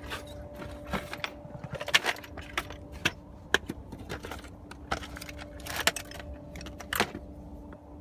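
Scattered plastic clicks, knocks and rattles, as the trim panel on the side of a Ford F-series pickup's dashboard is pried off with a panel popper tool. A faint steady hum runs underneath.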